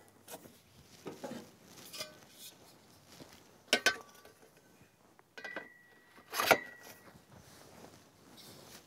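Metal leg poles of a tripod deer feeder clinking and knocking as the sections are handled and fitted together: a few faint taps, then two sharper clanks about four and six and a half seconds in, with a short metallic ring around the second.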